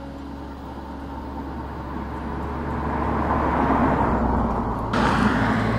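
A car driving past at road speed, its engine and tyre noise growing louder as it nears and peaking as it goes by about three and a half seconds in. Near the end the sound breaks off suddenly into another car's pass.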